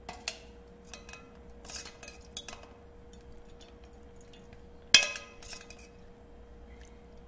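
Steel spoon pressing curdled milk curds in a plastic tea strainer, scraping and clinking against the strainer and the steel pot beneath it. A scattering of short clinks and scrapes, the loudest a sharp knock about five seconds in.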